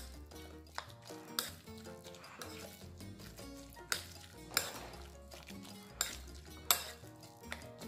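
A utensil stirring a wet ground-beef, spinach and egg mixture in a ceramic bowl, clinking sharply against the bowl about once a second at an uneven pace. Background music plays underneath.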